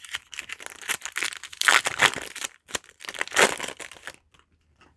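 Crinkling and rustling of a foil booster pack wrapper being handled, in irregular crackles with two louder bursts, stopping about four seconds in.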